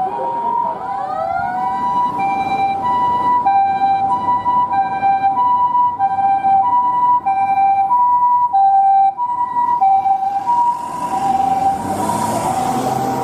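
Japanese ambulance siren sounding its standard two-tone "pee-poh", alternating steadily between a higher and a lower tone about every two-thirds of a second, after a short rising sweep about a second in. Near the end a rushing noise rises under it.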